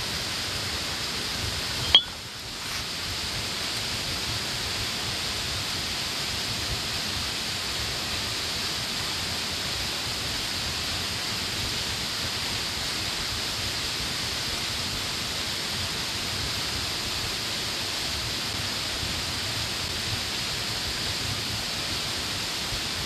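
Steady rushing of a waterfall, with falling water making an even hiss. A single sharp click about two seconds in is followed by a brief dip in the sound.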